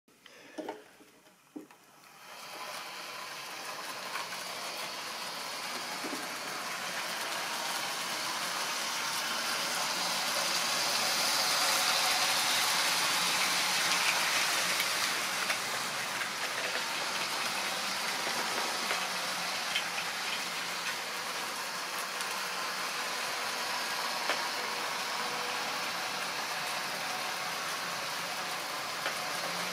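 Model railway train running on the track: a steady whirring rattle of the motor and wheels that comes in after a couple of seconds and builds, with occasional faint clicks.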